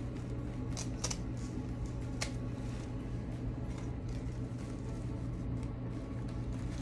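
Artificial flowers being handled: a few short clicks and rustles, about a second in and again a little after two seconds, over a steady low hum.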